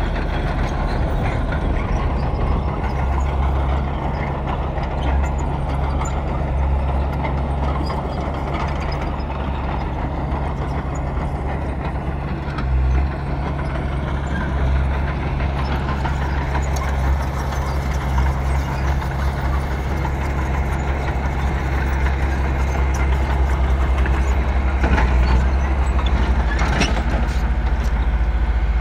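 Bulldozer's diesel engine running steadily under load, with a constant low hum, and a few sharp knocks near the end.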